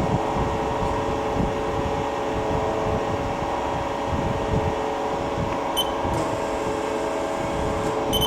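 Haas SL-10 CNC lathe running with a steady hum made of several held tones, and two short high beeps from its control about six seconds in and again at the end.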